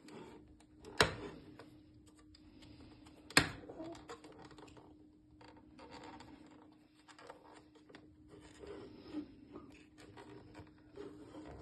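Hands working on the plastic parts of a freezer's ice maker: scraping, rustling and small taps, with two sharp clicks about a second in and at three and a half seconds, over a steady faint hum.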